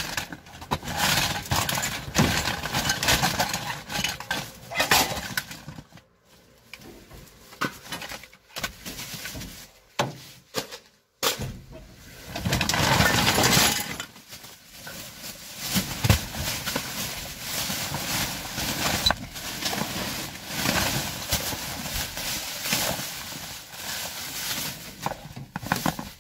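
Plastic bags, paper and cardboard rustling and crinkling as gloved hands dig through rubbish, with small knocks of objects being moved, in irregular spells broken by brief pauses.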